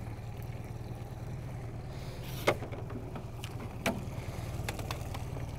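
Boat's outboard motor running at trolling speed, a steady low hum, with two sharp knocks about a second and a half apart and a few faint clicks after them.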